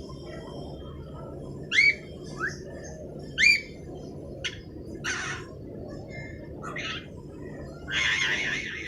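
Young cockatiel calling: a string of short chirps and sweeping whistled calls, the two loudest about 2 and 3.5 seconds in, then a longer, harsher call near the end.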